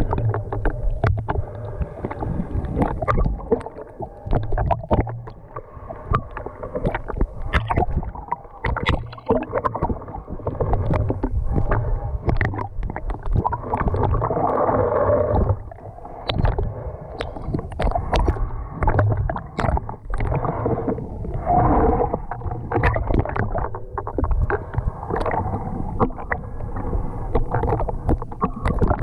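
Muffled water sloshing and bubbling heard through a GoPro's waterproof housing while snorkeling, with many small clicks and crackles. Louder gurgling stretches come about halfway through and again later.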